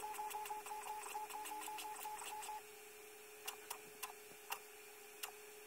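HP DeskJet 3070A inkjet printer printing a print quality report: a fast, even pulsing from the print mechanism that stops about two and a half seconds in, leaving a faint steady tone with a few scattered clicks as the page finishes.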